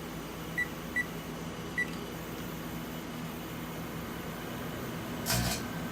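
Microwave oven keypad beeping three times as it is set, over a steady low hum, with a short burst of noise about five seconds in.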